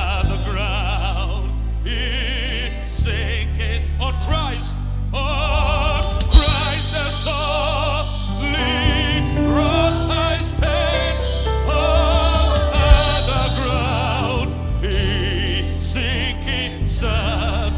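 Gospel worship music from a live church band: voices singing a hymn with vibrato over keyboard and a heavy bass line, with a couple of sharp percussive hits.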